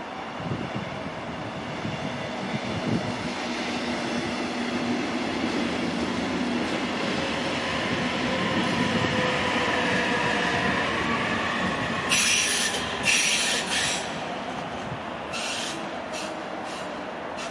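Class 146 electric locomotive pushing a train of double-deck coaches past, with wheel rumble on the rails and whining tones that rise slowly in pitch as it goes by. Several short, sharp high-pitched squeals come near the end, about a second apart.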